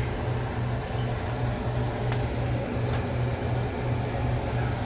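Steady low hum of a fan running, with a faint even hiss and a few light ticks.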